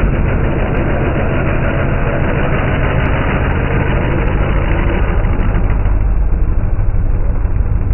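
Drag-racing car engines idling at low speed, a loud steady low-pitched engine sound with no revving; the top end thins a little about six seconds in.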